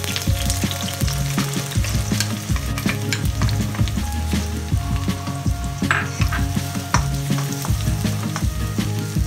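Chopped onions sizzling in hot oil in a wok, with a wooden spatula scraping and clicking against the pan as they are stirred. Background music plays underneath.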